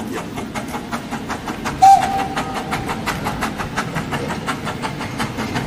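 A steam locomotive gives one short whistle blast about two seconds in. Under it runs a rapid, even clatter of about seven beats a second from the train as it moves.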